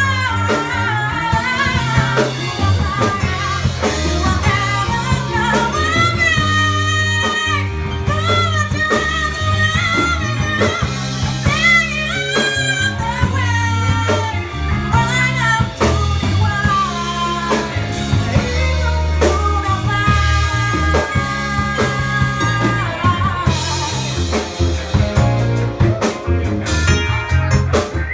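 Live band music in a bluesy style: a singer's melody with vibrato over bass, guitar and drums, with the drums and cymbals busier near the end.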